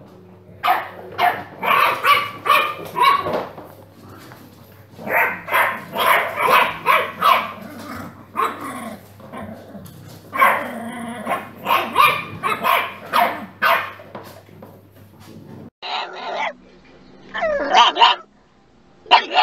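French bulldog puppies barking in short bursts of several quick barks at a time. Near the end a pug barks a few times inside a car.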